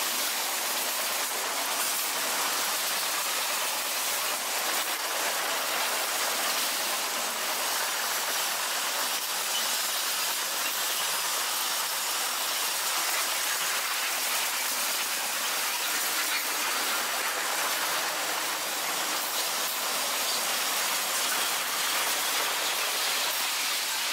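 Freight cars rolling past close by: a steady, even rush of steel wheels on rail from covered hoppers and then tank cars.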